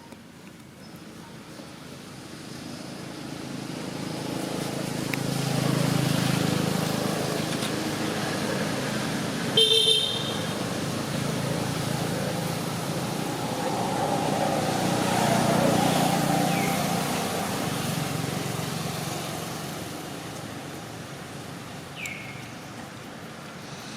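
Motor vehicles passing, their sound swelling and fading twice, with a short horn toot about ten seconds in.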